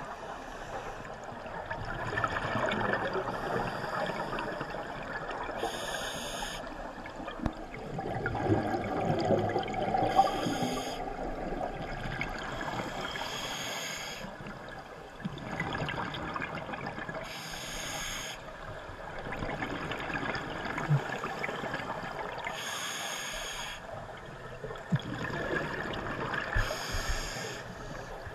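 A scuba diver breathing through a regulator underwater. Each breath gives a short hiss about every four or five seconds, with bubbling and rushing water noise between the breaths.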